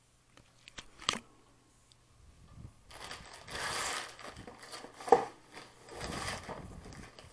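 Plastic poly mailer crinkling as it is handled and cut open with scissors. There are scattered sharp clicks and snips, the loudest a sharp snap about five seconds in.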